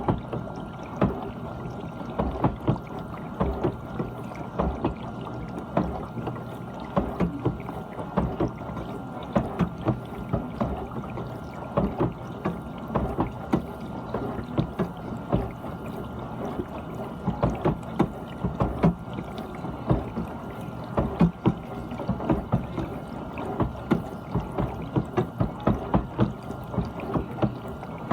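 GE dishwasher running, water splashing and sloshing inside the tub in quick, irregular spurts over a steady low hum.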